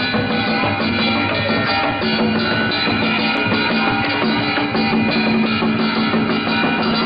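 Brass band playing with drums: held horn notes over continuous drumming.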